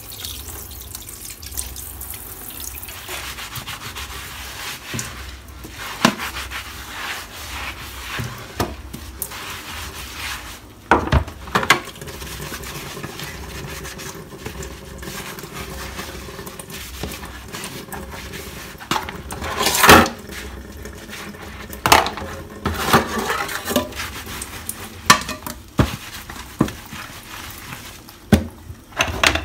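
Dishes being washed by hand at a kitchen sink: steady scrubbing and rubbing, broken by sharp clatters of plates and utensils knocking together, the loudest about two-thirds of the way through.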